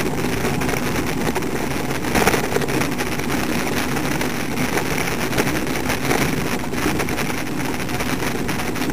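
Wind rushing over a bike-mounted camera's microphone while riding along a road, a steady loud rumble and hiss.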